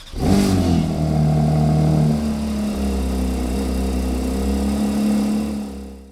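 Porsche 911 GT3 Touring's naturally aspirated 4.0-litre flat-six starting up. It catches with a rev flare that drops quickly, settles into a steady fast idle, and fades out near the end.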